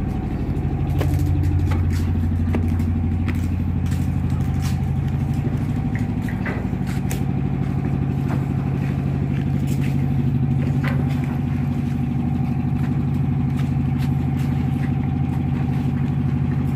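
Tugboat's diesel engine running with a steady low drone, with scattered light knocks and clanks of work on the steel deck.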